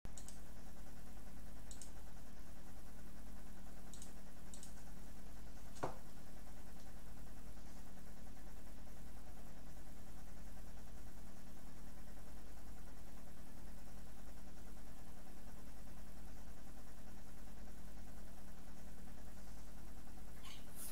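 Steady low hum with a few faint clicks in the first few seconds.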